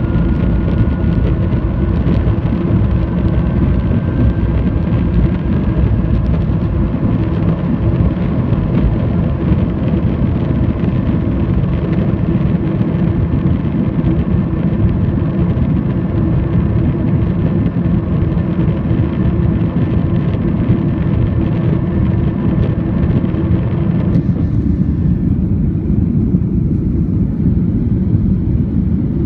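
Jet airliner's engines at takeoff power heard from inside the cabin: a loud, steady rumble with a faint fan whine that rises slightly in pitch as the aircraft lifts off and climbs. About 24 seconds in, the higher part of the sound falls away and a duller rumble carries on.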